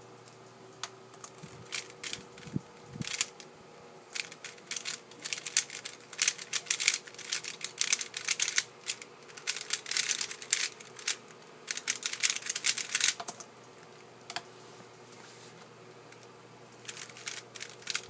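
Dayan GuHong 3x3 speed cube turned rapidly through a timed solve: a fast, dense clatter of plastic layer turns lasting about twelve seconds, stopping suddenly about thirteen seconds in. Turning starts again shortly before the end.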